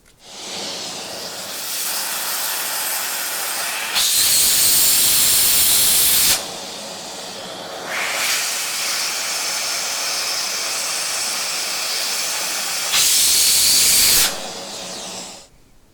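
Vacuum cleaner running with a steady airy rush, its nozzle sucking at a phone's charging port to draw out lint and dirt. The rush grows louder for a couple of seconds about four seconds in and again near the end, then stops just before the end.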